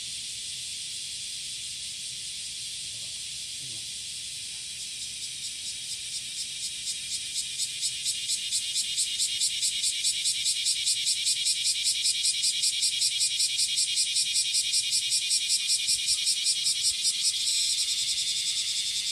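Cicadas singing: a steady high buzz, over which a male's pulsed courtship song starts about five seconds in. The song grows louder at roughly four pulses a second, then runs into a steady drone near the end.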